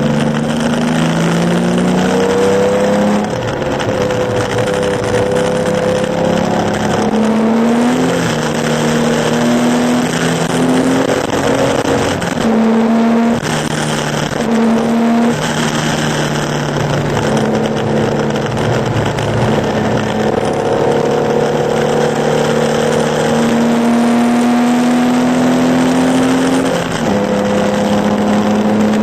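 Porsche 911 2.0's air-cooled flat-six engine running hard under racing load. Its pitch climbs and then drops sharply at each gear change, several times. Throughout there is a steady hiss of tyres and spray on the soaked track.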